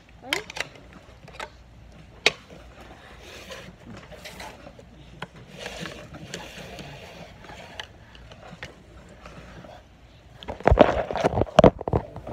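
Scattered clicks and light knocks from objects being handled on a counter. Near the end comes a loud run of knocks and rubbing as the recording phone is picked up and turned.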